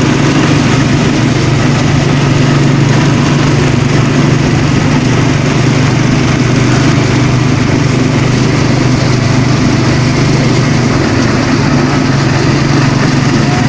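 A small engine running steadily at an even speed, a constant hum with a steady hiss over it.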